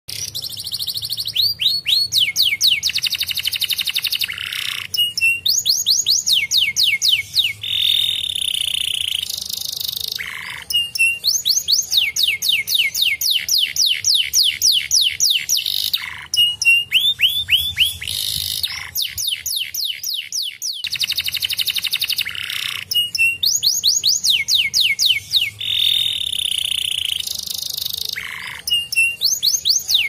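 Domestic canary singing a long, fast song of rolling trills and rapidly repeated notes, phrase after phrase, with a brief pause about two thirds of the way through.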